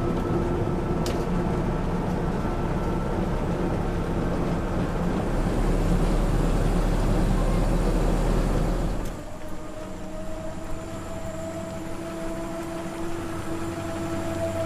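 A 1928 SOS QL single-decker bus running on its 4¼-litre side-valve engine. About nine seconds in, the sound drops abruptly to a quieter run with a steady whine that slowly rises in pitch.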